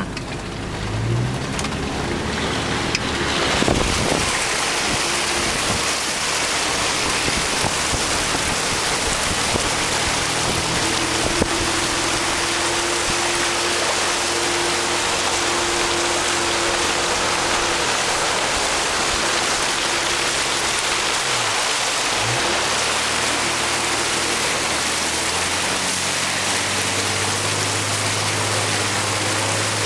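Jeep Cherokee wading through deep floodwater: a loud, steady rush and splash of water thrown up by the front of the vehicle, with the engine running underneath. The engine note dips briefly about two-thirds of the way through.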